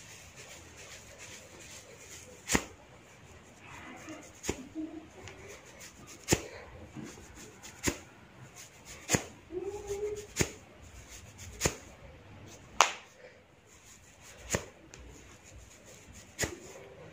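Hair cracking: locks of hair gripped and tugged sharply at the scalp, each tug giving a sharp crack. About ten cracks come one after another, roughly every one and a half to two seconds.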